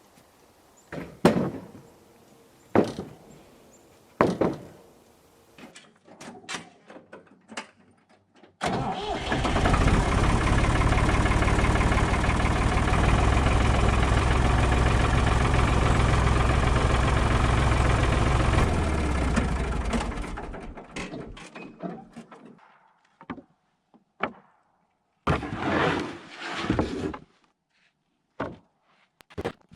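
Engine running loud and steady for about ten seconds, starting abruptly and then fading out, with a few sharp knocks before it and some clatter after.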